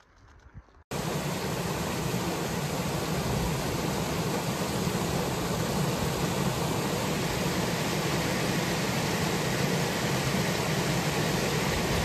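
A small mountain stream tumbling down a rocky cascade: a steady rush of water that cuts in abruptly about a second in.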